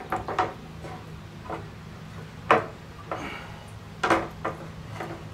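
A hand rummaging in a plastic bucket of water, feeling for a freshly cast aluminum piece. It gives several separate knocks and light splashes, the loudest about two and a half seconds in.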